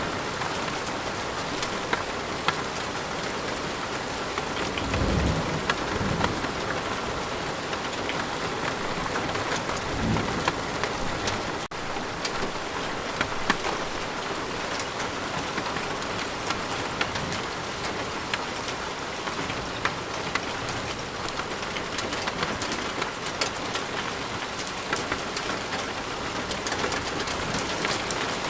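Steady rain falling, with individual drops ticking through the hiss. Two short, low rumbles of distant thunder come about five and ten seconds in.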